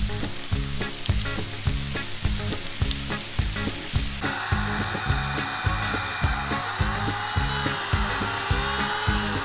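Background music with a steady beat; about four seconds in, a steady hissing noise joins it.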